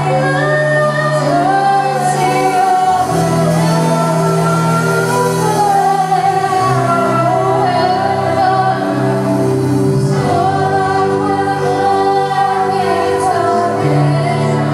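Live worship band playing a slow contemporary worship song: a woman sings the lead melody over guitars and a bass line of long held notes that change every few seconds.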